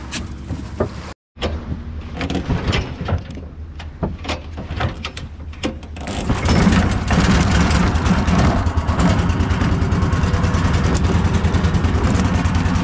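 Small recoil-start boat engine running, with knocks and clatter of handling around it. About six seconds in it speeds up and becomes much louder, then runs steadily at the higher speed.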